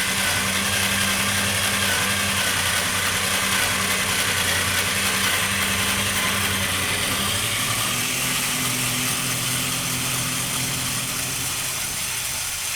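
Old Black & Decker slow, high-torque power screwdriver running continuously as it backs out a long flathead screw, a steady motor and gear whine. Its pitch steps up a little about eight seconds in.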